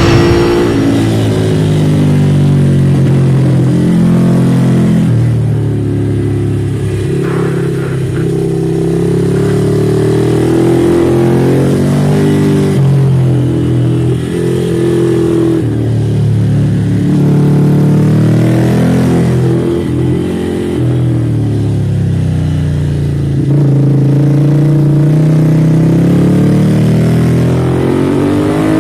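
Ducati Monster's L-twin engine through an Arrow aftermarket exhaust, heard from on board under hard acceleration. The pitch repeatedly climbs and then drops back as it runs up through the revs and changes gear.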